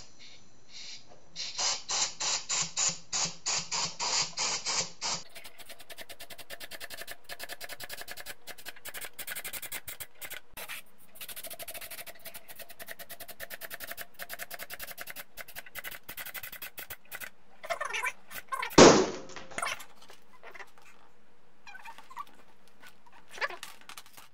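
Compressed air hissing in short pulses, about three a second, through an air chuck into a balloon inside the wooden ball, then a long stretch of background music. Late on comes one loud thump as the rubber-band-held wooden ball gives way, followed by a few lighter clicks of loose wooden pieces.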